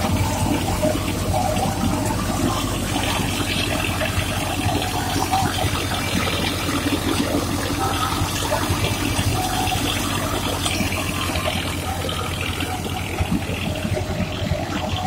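Tractor-driven wheat thresher running steadily, a dense rushing noise of the drum, fan and moving grain and straw, over the steady low drone of the Massey Ferguson 240's three-cylinder diesel engine driving it.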